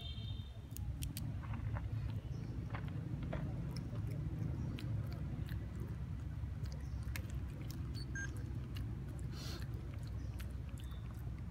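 A long-tailed macaque nibbling and chewing a small piece of food, heard as scattered small crunching clicks over a steady low rumble.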